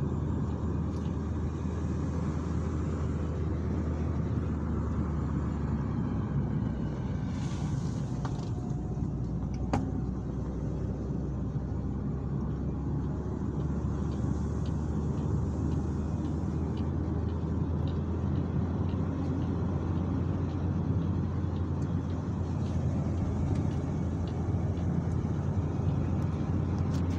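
Car driving, heard from inside the cabin: a steady low engine drone with tyre and road noise. A single sharp click about ten seconds in.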